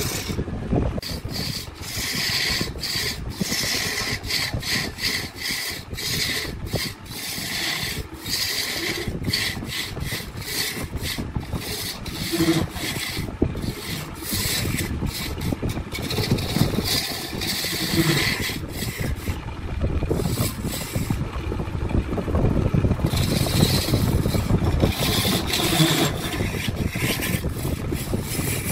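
Woodworking tool rubbing and scraping against wood in quick, uneven strokes, over a steady low hum.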